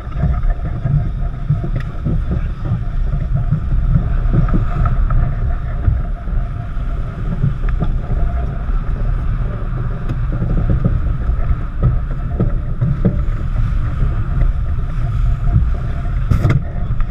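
Wind buffeting the microphone and water rushing along the hull of a heeled racing yacht sailing hard through choppy seas. The noise is loud and steady throughout.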